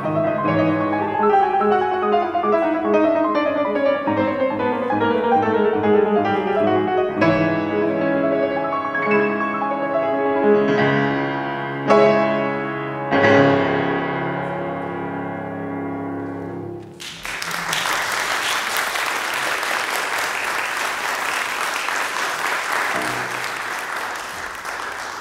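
Grand piano finishing a fast classical piece: quick runs sweeping downward, then a handful of loud, separate chords, the last one held before it stops. About seventeen seconds in, the audience applauds.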